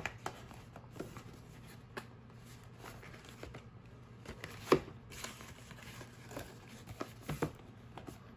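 A paperboard box being handled and pried open by hand: cardboard rubbing and scraping, with scattered light clicks and taps, the sharpest about halfway through.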